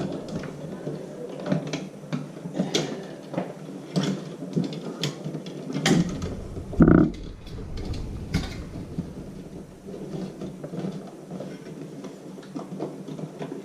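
Scattered clicks, taps and small rattles from hands working at the wires and switch in a wall electrical box, with a louder knock about seven seconds in.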